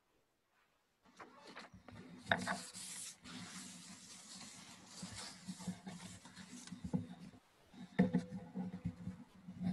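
Papers and a book rustling and being handled close to a lectern microphone, starting about a second in, with scattered small knocks and a low steady hum underneath.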